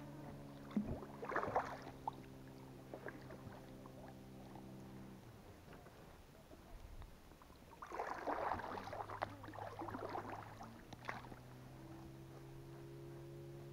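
Oars dipping and splashing, with knocks against an inflatable PVC boat as it is rowed. There are two short runs of strokes, one about a second in and a longer one about two-thirds through. A steady low hum lies underneath and shifts pitch twice.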